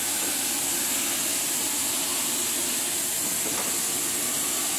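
Compressed-air paint spray gun hissing steadily as paint is sprayed onto a steel door.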